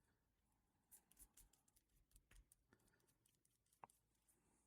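Near silence with faint, scattered light clicks of small plastic and metal parts being handled, one a little more distinct near the end.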